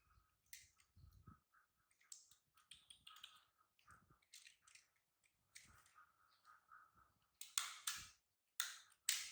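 Faint, irregular clicking and rustling with a few soft, short squeaky sounds, and several sharper clicks near the end.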